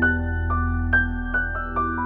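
Background music: a gentle keyboard melody of single struck notes, two or three a second, over a sustained low drone.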